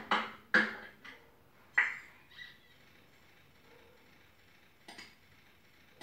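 Computer sound effects from a stick-figure animation playing through TV speakers: a handful of short, sharp keyboard and mouse clicks. They come in a quick cluster in the first two seconds, then one more about five seconds in.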